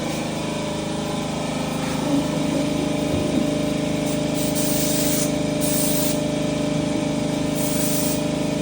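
Spray gun hissing in several short bursts as primer is sprayed onto the truck frame, over a steady motor hum.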